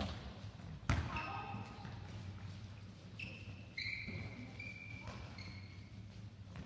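Handballs slapping into hands and bouncing on a sports hall floor, with one loud slap about a second in and a few softer thuds later. Short high squeaks of shoes on the hall floor, and voices in the background.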